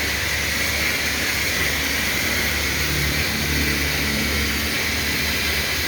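Oliver 58 offset printing press running steadily while printing cigarette paper: an even mechanical hum and hiss.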